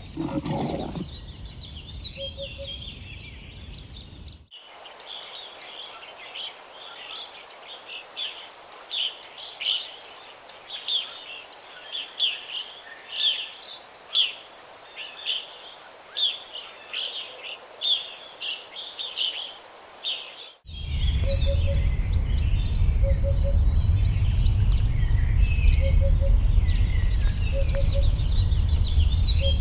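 Birds chirping in a natural outdoor ambience: a long run of short, bright chirps, roughly one or two a second, through the middle. In the last third the background cuts abruptly to a louder one with a steady low rumble under the birdsong and a soft two-note call repeating every second or two.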